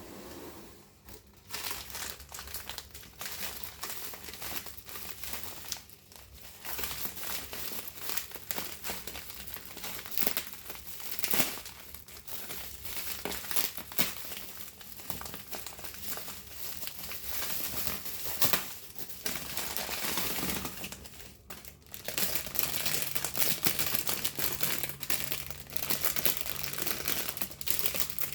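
Packaging wrap being handled and unwrapped by hand, crinkling and rustling almost continuously, with a short pause about three quarters of the way through.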